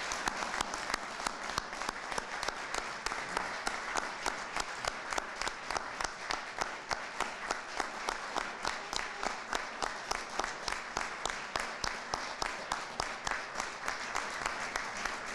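Audience applauding steadily, with sharp single claps from nearby hands standing out at a regular pace over the general clapping.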